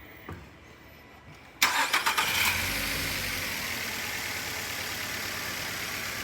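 A 2012 Nissan Altima's 2.5-litre four-cylinder engine cranked over by the starter, catching about a second and a half in and settling into a steady idle. It is still misfiring.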